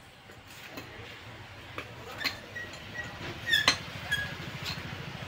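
Light metallic clicks and clinks from hands and a small tool working at the top of a stainless-steel submersible pump casing, a few with a brief ringing after them; the loudest clink comes about three and a half seconds in. Under them is a low engine rumble of passing traffic that grows from about halfway.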